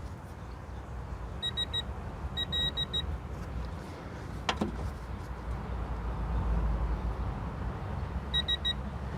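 Short high electronic beeps in quick runs of three or four pips, heard twice, while a rear suspension bolt is being torqued to 78 newton metres, with one sharp click around the middle. A low steady rumble lies underneath.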